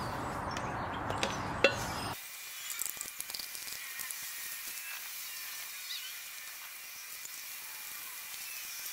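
Steel bolts, washers and frame parts being handled by gloved hands during assembly: a louder rushing noise with a sharp knock, which stops abruptly about two seconds in, then light scattered clinks and taps over a faint hiss.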